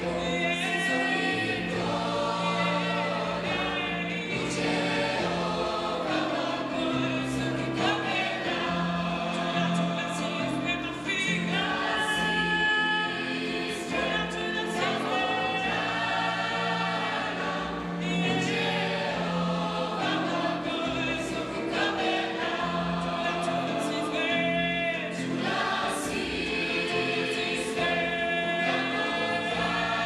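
Large youth choir singing, with a young female soloist's voice leading over it.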